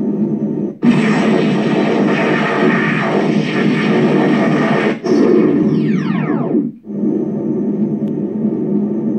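Replica proton pack's electronic sound effects played through its speaker: a steady idle hum, broken about a second in by a loud hissing blast of the firing effect for about four seconds, then a whine falling steeply in pitch for about two seconds before the hum comes back.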